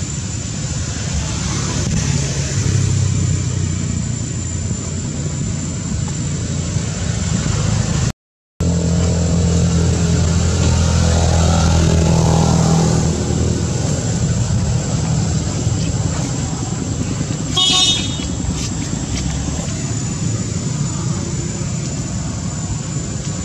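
Motor traffic running steadily, with an engine rumble that swells a little past the middle, and a short horn toot near the end. The sound drops out briefly about a third of the way in.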